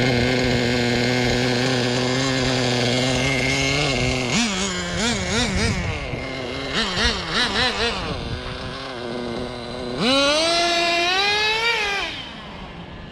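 Traxxas Jato 3.3's small nitro engine idles steadily, then is revved in quick wavering blips from about four seconds in. About ten seconds in it goes to a long full-throttle run whose pitch climbs, then drops and fades as the car runs away.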